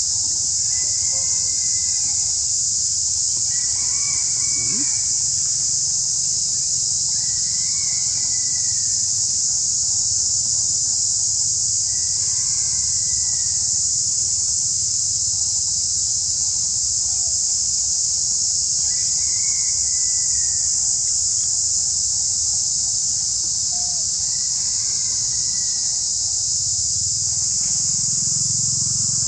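Steady, loud, high-pitched insect drone with no let-up. Over it, a short call that rises and falls comes back about every four seconds.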